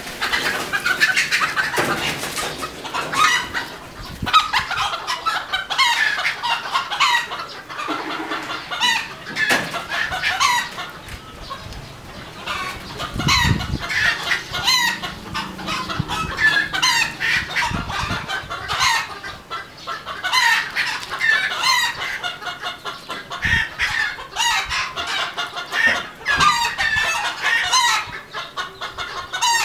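Red junglefowl hens and roosters clucking and calling almost without pause, many short repeated notes overlapping.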